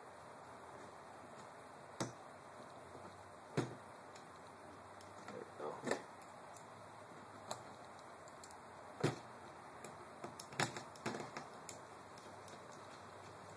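Sparse, irregular light clicks and taps of an Allen key and small metal parts on an airsoft rifle's lower receiver, as the screw holding the magazine release button is backed out.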